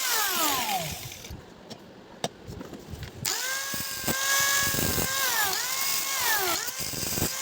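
Electric drill-driver motor running in short bursts while taking screws out of a mixer grinder housing: it winds down just after the start, then after a pause runs steadily for about two seconds, slows, speeds up once more and winds down near the end.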